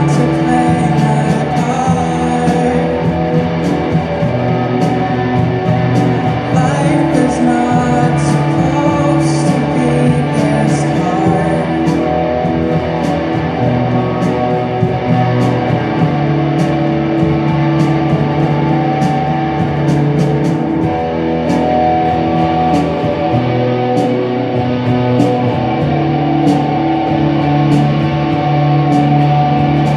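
Rock band playing: electric guitar over a steady drum beat, with cymbal crashes in the first few seconds and again from about seven to twelve seconds in.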